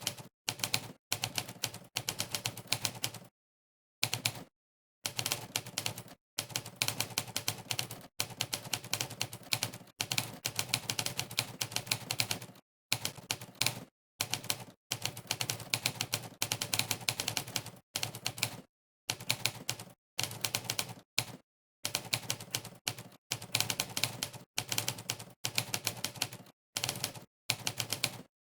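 Typewriter key-strike sound effect from a typing-test website, one sharp clack per keystroke, in fast runs of typing broken by short, fully silent pauses.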